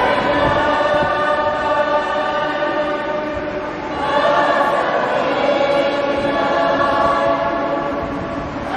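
Church choir, mostly women's voices, singing a hymn in two long phrases of held notes, the second beginning about four seconds in.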